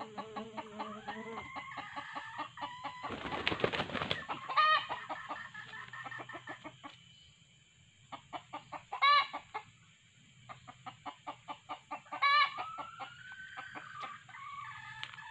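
Red junglefowl clucking in rapid ticks, with three short sharp calls. A burst of wing flapping comes about three to four seconds in, from a snared rooster struggling in the hand.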